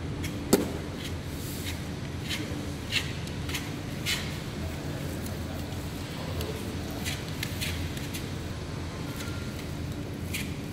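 Paint roller spreading wallpaper paste over the back of a wallpaper sheet on the floor, with short rustling and rolling strokes of paper. There is a sharp knock about half a second in and smaller clicks near three and four seconds, over a steady low background hum.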